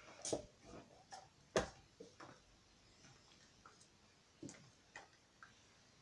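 A handful of light clicks and knocks as acrylic paint bottles are capped and set down on a table, the sharpest about a second and a half in.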